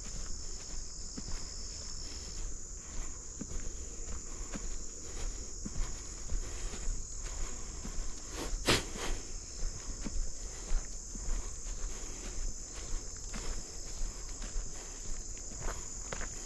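A steady high-pitched insect chorus, one of its two buzzing tones stopping about two seconds in, with footsteps at a walking pace through the marsh and a sharp snap about halfway through.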